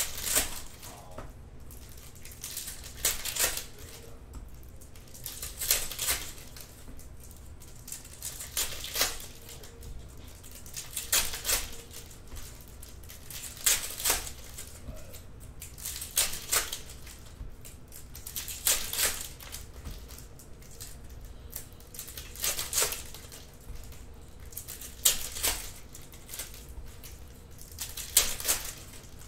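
Trading cards being handled and flipped through by hand, a short papery rustle about every two and a half seconds.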